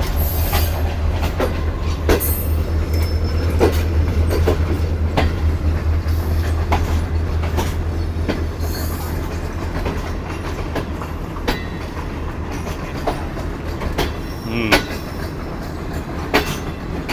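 Passenger train running on the rails, its wheels clicking and knocking irregularly over rail joints and points under a steady low rumble. The rumble eases off about ten seconds in, as the train comes into the station.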